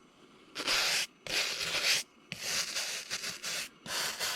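Brass wire brush scrubbing a V-carved PVC surface in rapid back-and-forth strokes, coming in four bursts with short pauses between, starting about half a second in. It is clearing the fuzzy, partly melted plastic burrs left by the carving bit.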